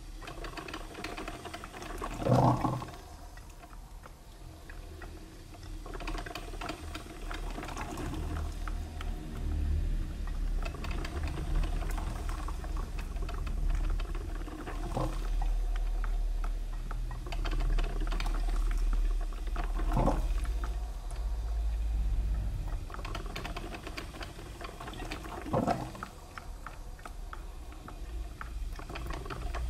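Coffee machine brewing: water gurgling and sputtering over a low hum, with a few short louder spurts.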